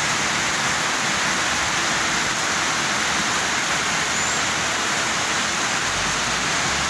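Heavy downpour: a steady, dense hiss of torrential rain.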